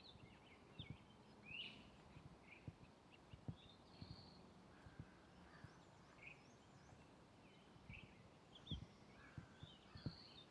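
Faint footsteps on a forest trail, soft thumps at about two steps a second, with small birds chirping and twittering throughout.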